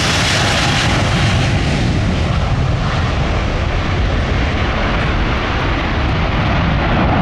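Airbus A350 XWB's Rolls-Royce Trent XWB turbofans running at high power in a loud, steady jet noise as the airliner flies its display. The hissing top of the sound fades from about two seconds in as it draws away.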